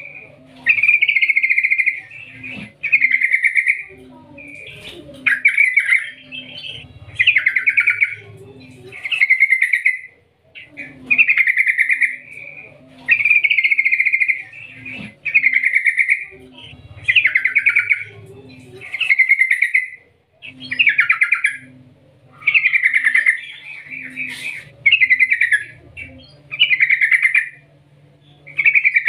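A yellow-vented bulbul singing without pause: a run of short, bubbly chattering phrases, about one a second.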